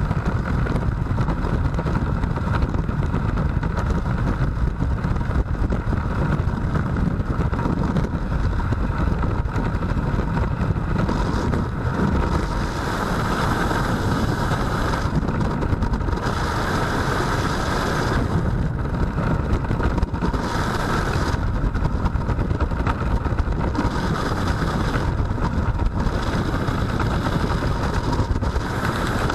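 Freefall wind rushing over a skydiver's helmet-mounted camera: a steady, heavy low rumble, with a brighter hiss that swells several times in the second half.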